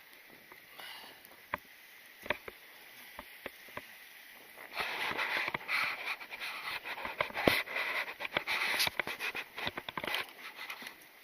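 Close handling noise: scattered sharp clicks for the first few seconds, then rustling and scraping with many clicks from about five seconds in until near the end.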